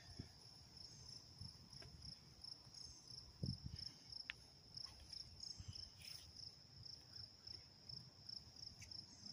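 Faint, steady high-pitched chirping of crickets, with a few soft knocks mixed in.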